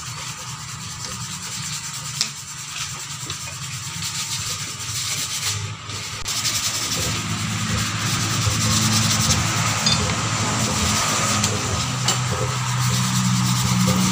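Small internal engine parts being rubbed and sanded by hand with sandpaper to clean them, a steady scratchy rasping. A low steady hum joins and grows louder from about halfway through.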